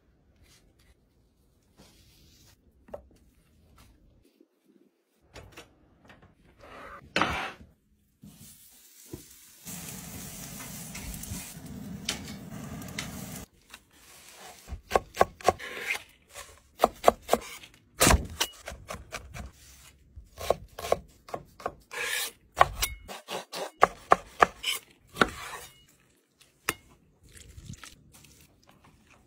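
Knife chopping fresh herbs on a wooden cutting board: a long run of sharp, uneven knocks in the second half. Before it come softer rubbing and handling sounds and a few seconds of steady rustling noise.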